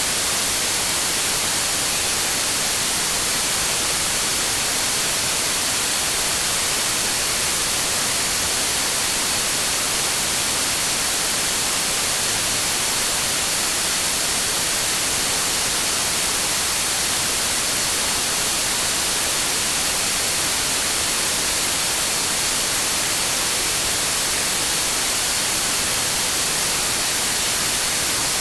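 Steady, unchanging hiss of synthetic green noise, a sleep-sound track, with a faint high tone held through it.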